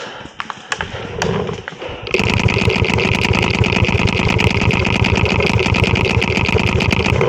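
A fast, steady mechanical rattle of rapid clicks starts suddenly about two seconds in and cuts off near the end, with a few separate clicks before it.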